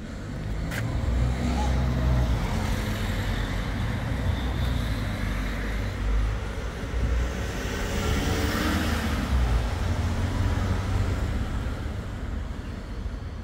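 Road traffic going by, a steady low rumble that swells as a vehicle passes about eight to nine seconds in.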